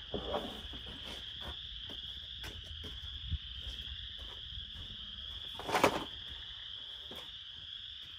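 Insects, such as crickets, trilling steadily in a high, even band, with a few scattered knocks; the loudest knock comes near the six-second mark.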